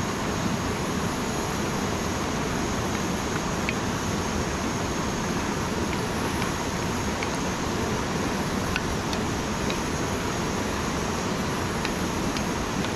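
Steady rushing of a river running over rocks, with a few faint clicks of a wooden spoon stirring in a cast-iron skillet.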